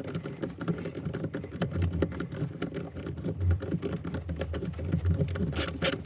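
Dense, rapid small clicking and rustling from wires being handled and worked into the terminals of an MPPT solar charge controller, with a few sharper clicks near the end.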